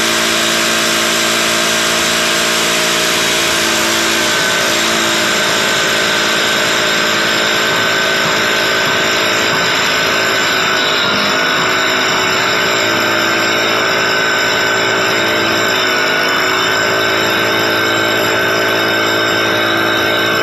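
Jackhammer running continuously, a steady unbroken machine hammer with a fixed whine.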